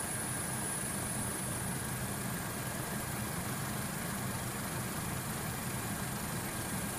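Steady engine drone of the aircraft filming from above, with no breaks or impacts, and a faint steady high whine over it.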